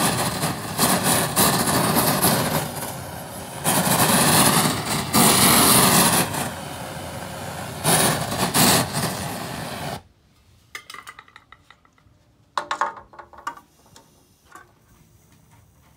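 Handheld gas-canister torch flame running steadily against a steel sword blade, swelling and easing in loudness as the torch is moved along it. It cuts off abruptly about ten seconds in, leaving a few faint clicks and a short burst of sound a few seconds later.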